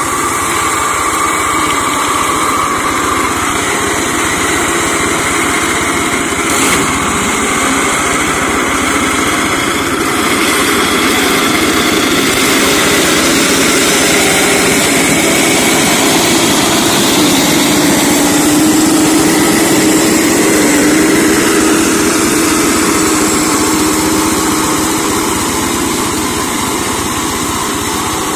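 Single-cylinder diesel engine of a walk-behind hand tractor converted into a mower, running steadily as its cutting deck clears undergrowth.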